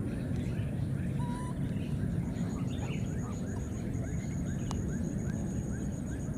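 Outdoor ambience: a steady low rumble with many faint scattered chirps. A short high whistle-like squeak comes about a second in, and a thin, steady high tone begins about two seconds in.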